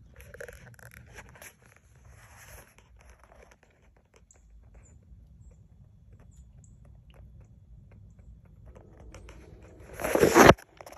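Light rustling and small clicks of handling, then about ten seconds in a loud, half-second burst of rustling and rubbing close to the microphone as the shotgun is grabbed and the phone swung.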